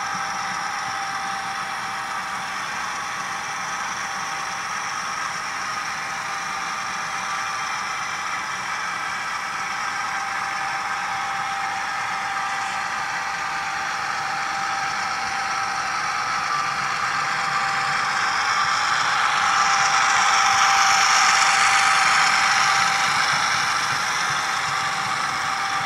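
Model coal train running past on layout track: a steady diesel-engine sound from the sound-equipped model locomotives mixed with the rolling of the loaded hoppers. It swells to its loudest a few seconds before the end.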